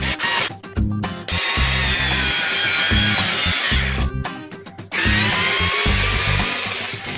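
Cordless electric screwdriver driving wood screws into particleboard under load: two runs of motor whine, the first about three seconds, the second about two, with a short pause between. Background music plays underneath.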